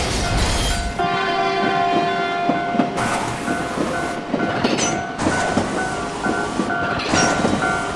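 Level crossing bell ringing in a steady repeating 'kan-kan' rhythm, about two strokes a second, while a train passes with rail clatter and rushing noise. A train horn sounds for about two seconds about a second in.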